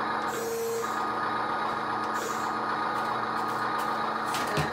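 Toy RC CAT 745 articulated dump truck running while its dump bed lowers: a steady electronic hum, with a short beep about half a second in. A few clicks near the end.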